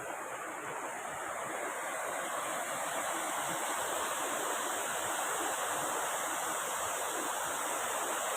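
Waterfall: steady rushing water, growing slightly louder about two seconds in.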